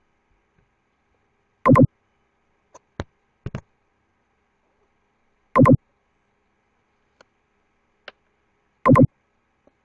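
Three short buzzy tones, each about a fifth of a second long and a few seconds apart, with a few faint clicks in between.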